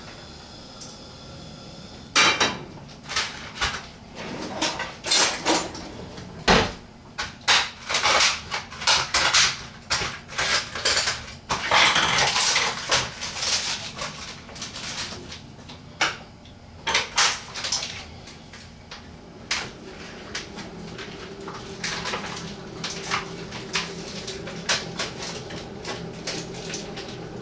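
Kitchen clatter of a frying pan and utensils: a frying pan set down on a gas hob, then a long run of clinks and knocks, with a denser noisy stretch about twelve seconds in. It settles to a faint steady hum in the last third.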